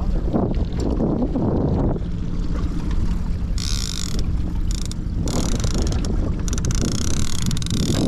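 Boat motor running steadily while trolling, a low even hum, with stretches of higher hissing noise over it in the second half.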